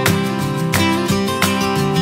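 Background music of strummed acoustic guitar chords, a strum about every two-thirds of a second.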